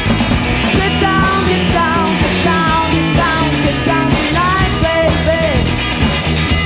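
Loud rock music, with gliding melody lines over a steady low accompaniment.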